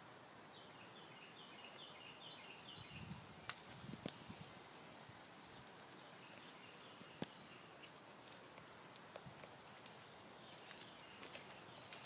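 Near silence outdoors: faint bird chirps, a quick run of short repeated notes in the first few seconds and a few single higher chirps later, with a handful of soft clicks scattered through.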